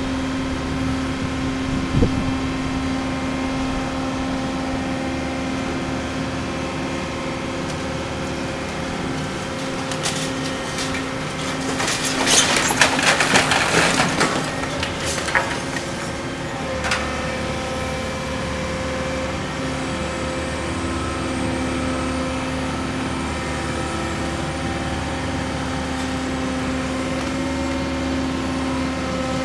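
Hydraulic excavator's diesel engine running steadily while its demolition grapple tears at a building. There is a single knock about two seconds in. About ten seconds in comes the loudest part, several seconds of crashing and crumbling as wood and masonry debris breaks away and falls.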